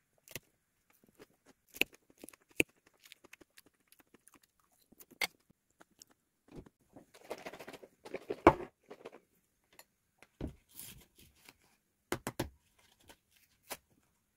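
Scattered light clicks and knocks of objects being handled in a small room, with a rustle of about two seconds in the middle that carries the loudest knock.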